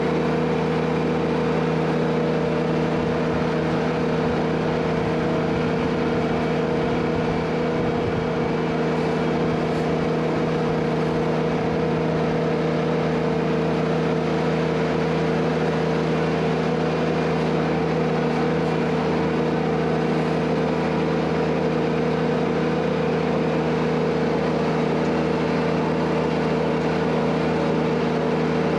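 Ventrac compact tractor's engine running at a steady speed, its pitch holding level with no revving up or down.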